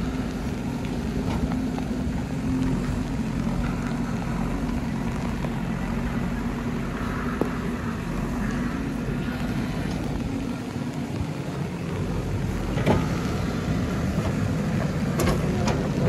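JCB 3DX backhoe loader's diesel engine running steadily under load while the backhoe digs, with a couple of sharp knocks in the last few seconds.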